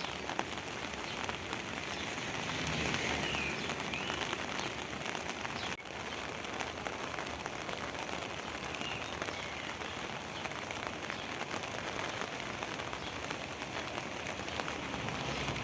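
Steady rain falling, with many drops pattering on surfaces.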